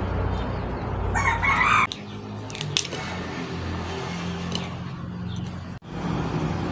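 A rooster crowing once, about a second in, over a steady low hum, followed by a couple of sharp clicks.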